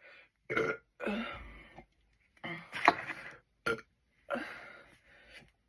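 A person burping several times in a row, some burps short and some long and drawn out, the loudest about three seconds in.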